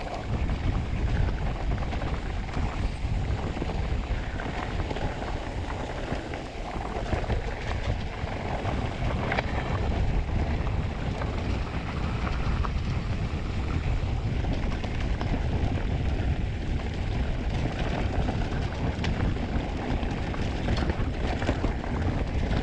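Wind buffeting the microphone and mountain-bike tyres running over a rough dirt trail on a fast descent, with scattered knocks and rattles from the bike.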